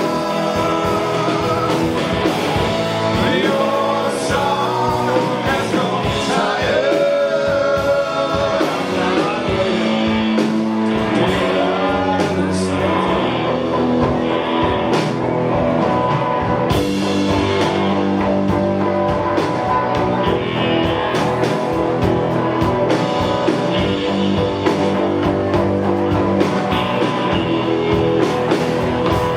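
Live rock band with a horn section playing: electric guitars, bass guitar, drums, trombone and tenor saxophone together in a full, steady groove, with a wavering melodic lead over it.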